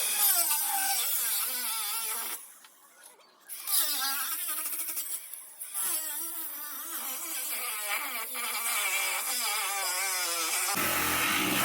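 Cordless Milwaukee angle grinder cutting into a steel wheel rim, its motor whine wavering in pitch as it loads up and cutting out briefly twice. Near the end the sound turns rougher and fuller.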